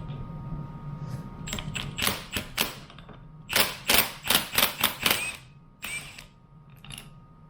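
Hand tools working a fitting loose on a portable air compressor. There are a few sharp metal clicks, then a quicker run of about five a second, some with a short ring.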